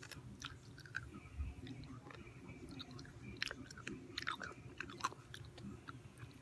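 A pickle being chewed close to the microphone: irregular crunches and mouth clicks, with a few sharper crunches in the second half.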